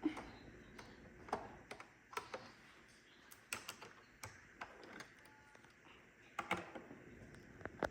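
Irregular light clicks and taps of a screwdriver and plastic parts as a Roomba's underside is unscrewed and handled, about a dozen sharp clicks spread unevenly through the stretch, a cluster of them near the end.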